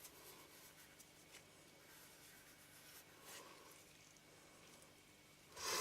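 Faint rubbing of a lens-cleaning tissue wiped over a glass lens element in short strokes, with a short, louder breathy hiss near the end.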